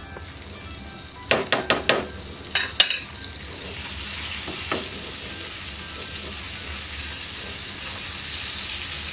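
Butter sizzling in hot caramelized sugar in a non-stick frying pan as a spatula stirs it. A quick run of about five sharp utensil taps comes a second or so in and two more near three seconds, then a steady sizzle sets in and grows a little louder as the butter foams.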